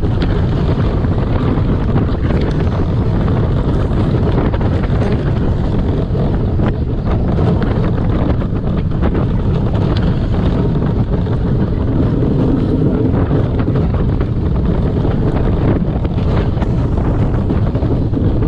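Wind buffeting the microphone on a moving roller coaster, over the steady rumble of The Ultimate's train running along its track.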